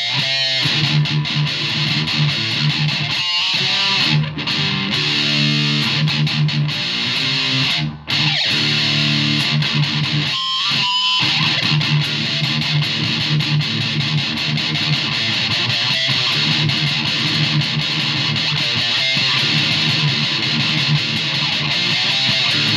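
Loud electric guitar music, strummed, with a short break about eight seconds in.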